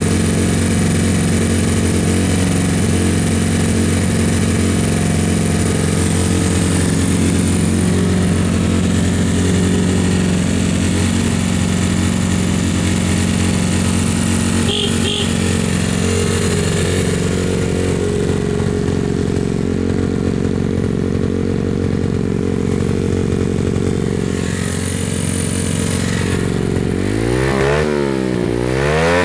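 Honda Monkey minibike's single-cylinder four-stroke engine idling steadily through an aftermarket chrome muffler. About 27 seconds in, the throttle is blipped, revving the engine up and down several times in quick succession.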